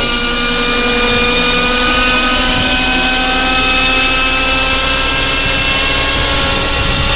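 Nitro (glow-fuel) engine of a model RC helicopter running at steady flying speed, with the main rotor, as the helicopter flies low. A steady high whine of several tones that hardly changes pitch.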